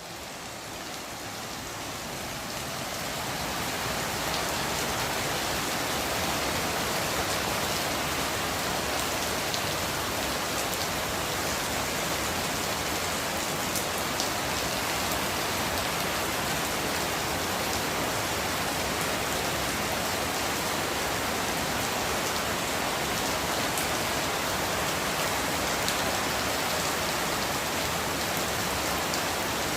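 Rain falling steadily, with a few scattered drop ticks; it fades in over the first few seconds.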